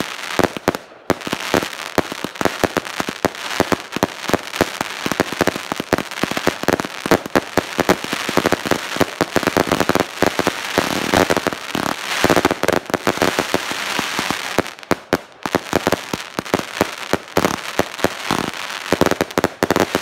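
Three 210-shot, 20 mm consumer fireworks cakes firing at once: a dense, rapid barrage of bangs with crackling star bursts. There is a short lull about a second in and another about fifteen seconds in.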